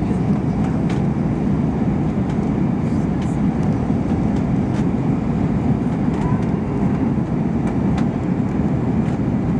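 Steady low rumble of cabin noise inside an Airbus A321-231 in flight: engine and airflow noise, with a few faint clicks.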